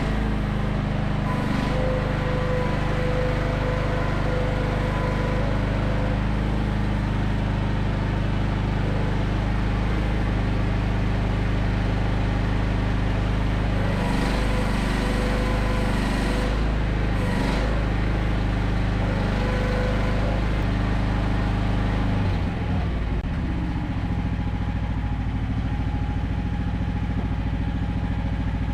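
AGT QH12R mini excavator's small gasoline engine running steadily, with a shift in its note about three-quarters of the way through. It stops abruptly right at the end.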